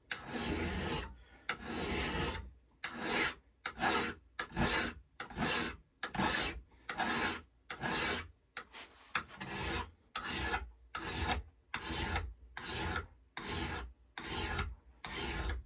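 Steel paper-cutter blade being sharpened by hand, a sharpening tool stroked back and forth along its edge with a gritty rasp. The first few strokes are longer and slower, then they settle to about two a second. The edge is being squared to 90 degrees to its face to take out a slightly rolled-over edge.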